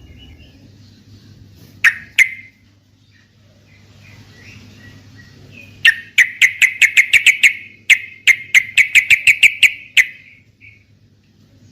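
Yellow-vented bulbul (trucukan) calling: two sharp notes, then two quick runs of short chattering notes, about seven a second, from about six seconds in.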